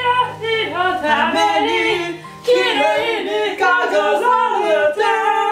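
Young men singing a song together in a cappella harmony, the melody moving over low held notes, with a long held chord near the end.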